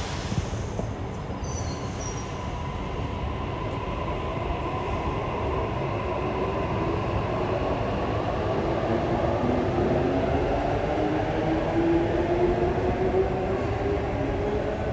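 Sydney Trains Waratah double-deck electric train pulling away from the platform. Its traction motors make a whine that rises steadily in pitch as it accelerates, over the rumble of the wheels on the rails.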